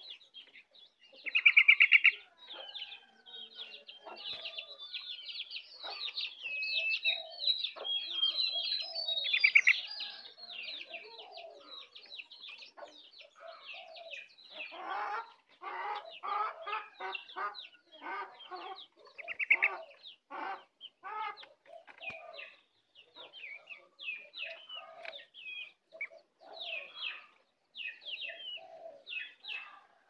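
Caged opior songbird singing: quick runs of high chirps and twitters, with loud buzzy calls about 2, 9 and 19 seconds in. Lower clucking notes, like a chicken's, come and go underneath.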